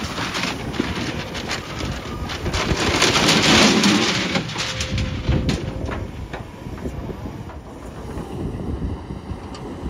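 Kobelco hydraulic excavator's diesel engine running while its steel bucket digs and scrapes through dirt and broken concrete. Clanks and grating throughout, loudest about three to four seconds in.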